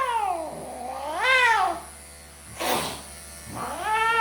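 A 17-year-old cat yowling in protest at being handled for grooming. There is a drawn-out falling yowl, a second yowl that rises and falls, a short hiss, and then a long yowl starting near the end. These are the sounds of an unwilling, defensive cat.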